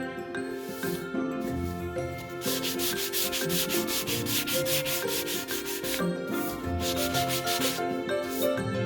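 Sandpaper rubbing on wood in quick back-and-forth strokes, several a second, in a few runs with the longest in the middle. Soft background music plays underneath.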